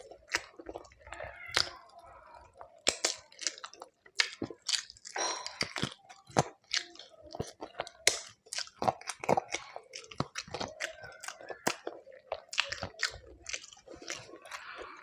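A person chewing a mouthful of food close to the microphone, with irregular sharp crunching clicks throughout.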